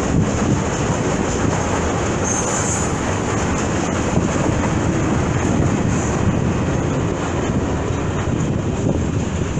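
Freight train wagons rolling past on the rails, a steady noise of wheels on track.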